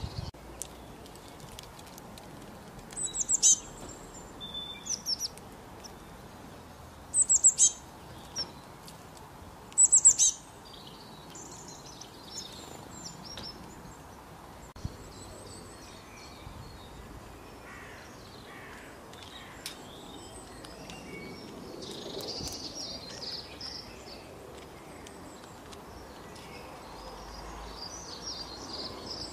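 Small songbirds calling and singing outdoors. There are short clusters of loud, high-pitched calls about three, five, seven and ten seconds in, then fainter, softer chirping through the rest.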